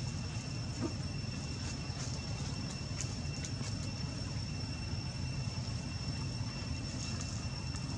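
Steady outdoor background: a low rumble with a thin, steady high-pitched whine over it and a few faint clicks. No monkey calls.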